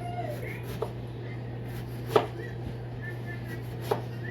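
Kitchen knife chopping food on a cutting board: three separate sharp knocks about a second and a half apart, the middle one the loudest, over a steady low hum.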